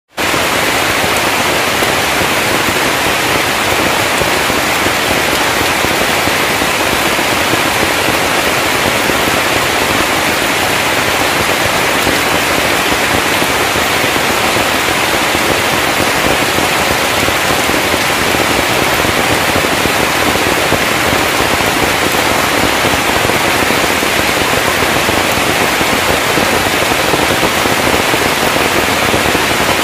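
Heavy rain pouring down steadily, a loud even hiss.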